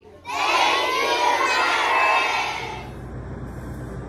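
A crowd of many children's voices at once, echoing in a hallway, dying away after about two and a half seconds into a quieter low hum.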